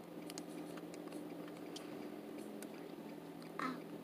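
Wet mouth clicks and smacks of a lollipop being sucked, over the steady low hum of a car cabin. A short vocal sound comes near the end.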